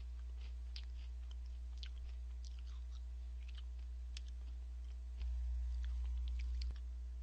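Cheetos corn puffs being chewed: a run of small, irregular crunches. A steady low hum runs underneath and gets louder for about a second and a half near the end.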